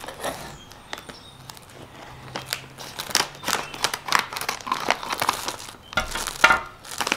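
Crinkly plastic snack bag being handled and opened: irregular crackling rustles that get busier and louder from about three seconds in.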